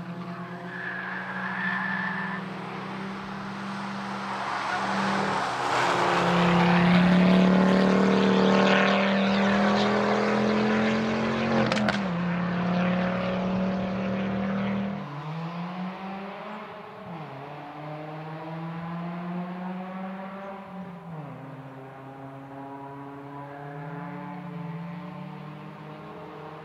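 Ford Focus ST's turbocharged 2.5-litre five-cylinder engine driven hard, loudest as the car passes close, with a sharp crack about twelve seconds in. After that it is farther off and quieter, its revs rising and falling as it is worked through the slalom.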